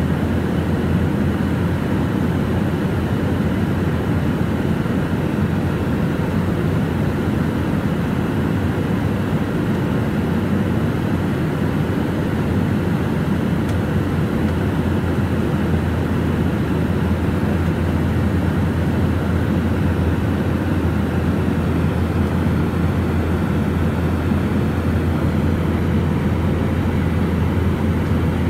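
Steady cabin noise of an aircraft in cruise flight: an even, unchanging rumble and hiss of engines and airflow heard from inside the cabin, heaviest in the low end.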